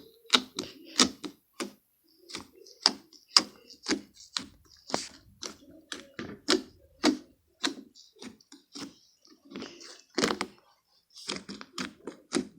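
Stiff fingertips poking into a large mass of slime again and again: a long irregular run of short squishy pokes and thunks, about two or three a second.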